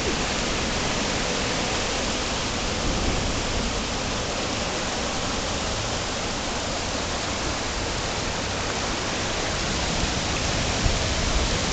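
Steady rush of fast-flowing floodwater churning through a street and around a parked car's wheel.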